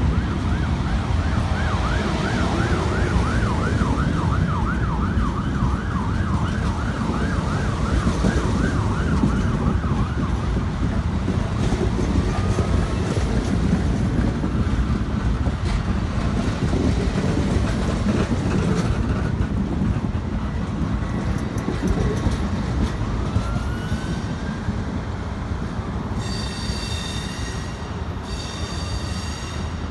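Amtrak Superliner passenger cars rolling past with a steady rumble of wheels on rail, while an emergency-vehicle siren wails rapidly up and down for the first ten seconds or so. Near the end, as the train moves away into a curve, two short high-pitched squeals come from the wheels.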